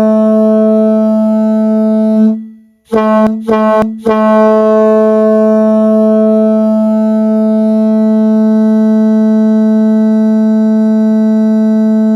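Loud hockey goal horn sounding one steady low note. A long blast cuts off about two seconds in, three quick short toots follow, and then another long blast is held.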